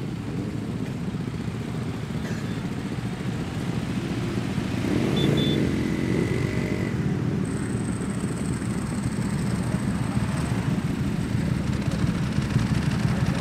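Motorcycle engines running, with one swelling louder about five seconds in before settling back to a steady drone.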